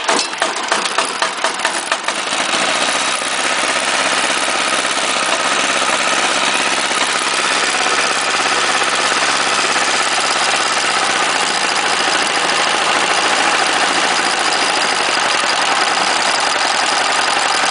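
418cc single-cylinder diesel engine firing up, its separate firing strokes plain for the first couple of seconds, then settling into steady running.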